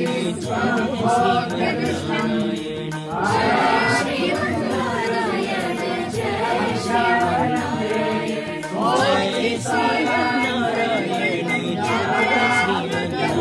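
A group of voices chanting a Hindu devotional hymn together, in long melodic phrases that rise and fall.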